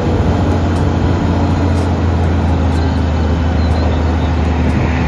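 Diesel engine of an eight-wheel tipper lorry running with a steady low drone while its hydraulic ram slowly raises the tipper body.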